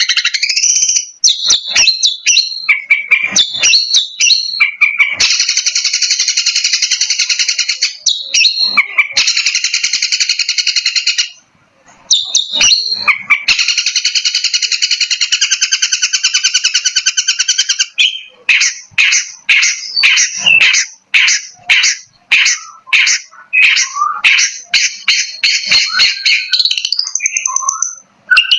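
Long-tailed shrike (cendet) calling: loud, harsh, scratchy chatter in long unbroken stretches, then a run of short sharp notes repeated about twice a second for the last third.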